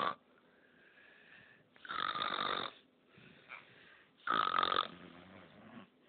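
Baby parrot making harsh, raspy noises: two loud bursts of under a second each, about two seconds apart, with fainter sounds between them.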